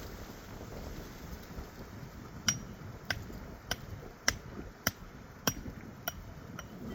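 Hammer striking, a regular series of sharp knocks about one every 0.6 seconds that begins about two and a half seconds in, over a steady rushing background.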